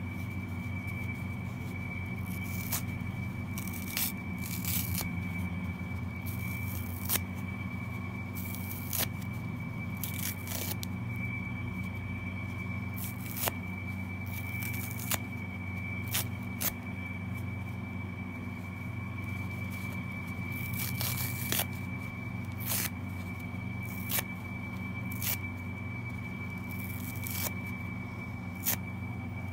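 Kitchen scrub sponges being ripped apart by hand, foam tearing in short, irregular rips every second or two. A steady low hum and a thin high whine sit underneath.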